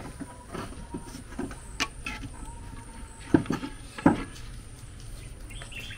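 Scattered light clicks and knocks over a low background hum, with two sharper knocks about three and a half and four seconds in.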